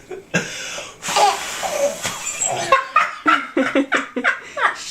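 Two breathy puffs of blowing at a baby, then a baby laughing in quick short bursts, about four or five a second.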